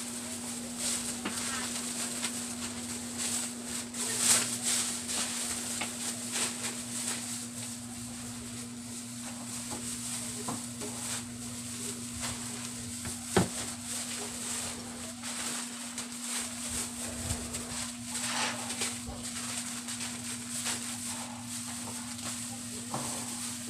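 Plastic grocery bags rustling and crinkling as items are packed into them by hand, with a sharp click about thirteen seconds in. A steady low hum runs underneath.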